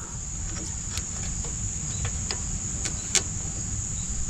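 Crickets chirping steadily over a low background rumble, with a few faint clicks from metal suspension parts being handled.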